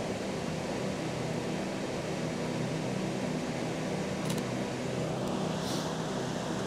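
Steady rushing of a river flowing beside the track, with a single camera shutter click about four seconds in.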